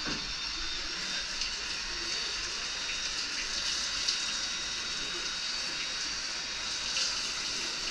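Garden-hose spray nozzle jetting water onto a fibreglass surfboard: a steady hiss of spray splashing off the board as sanding residue is rinsed away.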